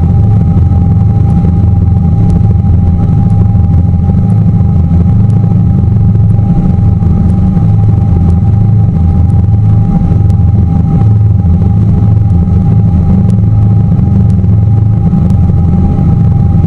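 Tour boat's motor running steadily at cruising speed: a loud, even low rumble with a faint steady hum riding above it.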